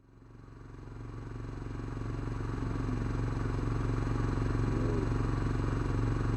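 An engine running steadily with a fast, even low pulsing, fading in from silence over the first few seconds.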